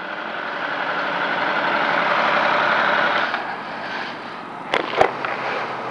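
Inline-four sport motorcycle idling in first gear as it rolls to a stop, the sound swelling over the first three seconds and then fading. Two sharp clicks come near the end.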